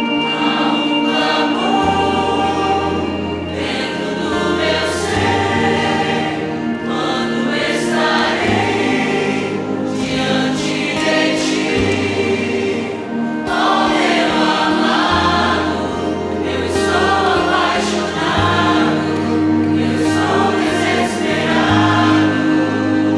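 Live Christian worship music: a band with bass, keyboard and drums playing under sustained singing voices that sound like a choir. The bass changes notes every couple of seconds, with regular cymbal hits over it.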